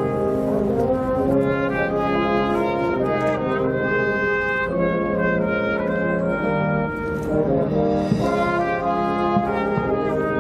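Brass band music: trumpets and trombones playing held chords that change every second or so, with a few light percussion hits.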